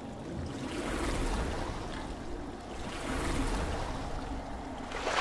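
Splashing, rushing water sound effect that swells about a second in, again around three seconds, and surges once more at the end.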